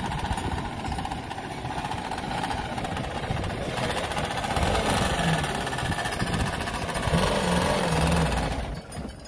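Daihatsu Rocky 4x4's engine running under load as it crawls through a deep dirt rut, revving up twice, about four and seven seconds in, then fading out near the end.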